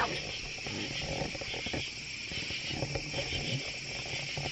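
Crickets chirping in a steady, high-pitched night chorus, with a few light knocks from the camera being handled.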